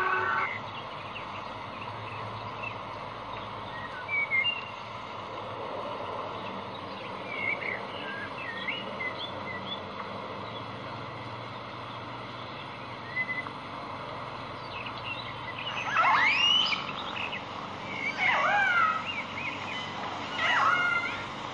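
Killer whale calls: scattered short whistles that rise and fall in pitch over a steady hiss, then a few louder sweeping calls in the last third.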